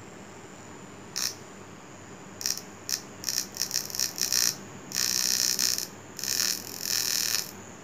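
Small brushed DC motor with a plastic propeller whirring in bursts as it is switched on and off: one brief spurt, then several short stuttering spurts, then two runs of about a second each. The motor runs again after its broken brush has been repaired.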